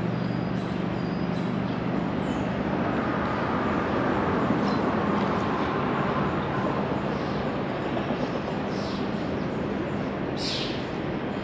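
Steady rumble and tyre hiss of road traffic crossing the concrete bridge overhead, with a low engine hum that fades after the first few seconds.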